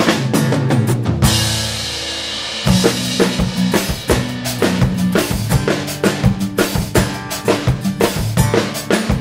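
Acoustic drum kit played in a fast, driving groove, with kick and snare hits about four a second. About a second in the hits stop for a crash cymbal wash over a held low note lasting over a second, then the groove picks up again. Pitched backing instruments sound underneath the drums.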